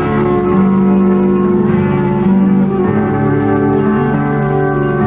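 Background music: held notes from plucked string instruments, changing every second or so.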